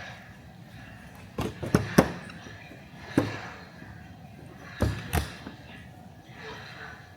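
Six sharp knocks and taps, like objects set down on a desk while studying: three close together about a second and a half in, one about three seconds in, and a pair near five seconds, over a steady hiss of water white noise.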